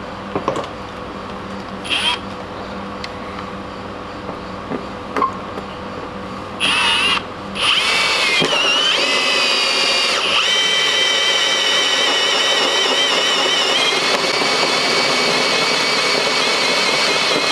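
Cordless Ridgid drill with a hole saw cutting through a bus's metal roof. After a few light knocks, the drill starts about six and a half seconds in with a short burst, stops for a moment, then runs steadily with a high whine as the saw bites into the metal.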